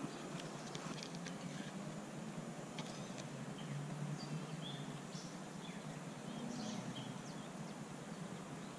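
Faint pondside ambience: a steady low rumble with scattered light clicks in the first few seconds and a bird chirping briefly now and then through the middle.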